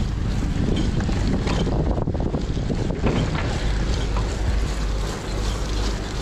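Wind rushing over a body-worn action camera's microphone while a cyclocross bike rolls over wet tarmac, with tyre noise and a few light clicks from the bike.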